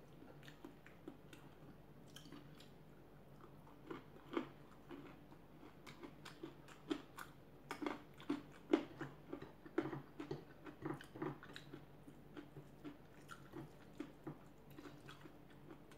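A person chewing and biting food close to the microphone: irregular mouth clicks and crunches, thickest around the middle.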